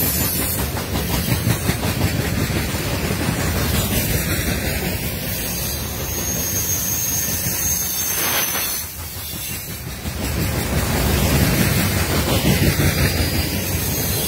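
CSX open-top hopper cars of a freight train rolling past close by: steady rumble and clatter of steel wheels on the rail.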